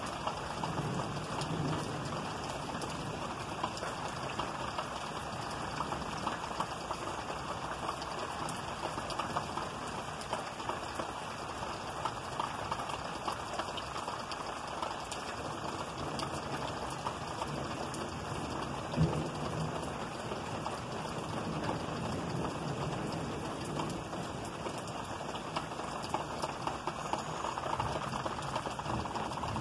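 Steady rain falling in a storm, a continuous hiss with the fine pattering ticks of individual drops, and one sharper, louder tap a little past the middle.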